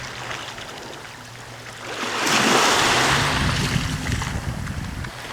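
Wind on the microphone and washing shoreline water, a steady noise that swells louder about two seconds in.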